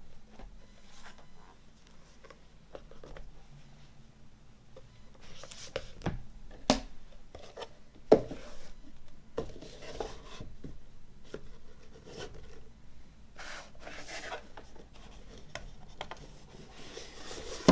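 Hands handling a movie box set and its disc cases: rubbing and scraping with a few sharp taps or clicks, the loudest about a third of the way in, around the middle, and at the very end.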